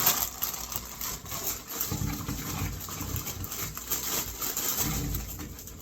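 Plastic bag of green beans being handled: crinkly rustling with many small clicks as beans are taken out.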